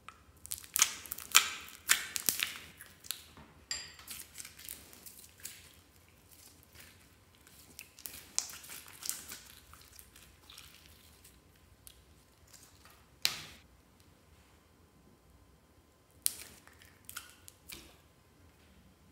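Bubbly clear blue slime pulled from a plastic container and squeezed by hand, giving bursts of wet crackles, pops and squelches, with one sharp pop about two-thirds through.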